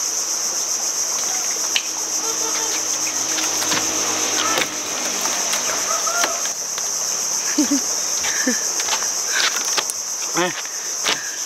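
Steady, high-pitched chorus of insects shrilling without a break, with a few scattered clicks and short chirps over it.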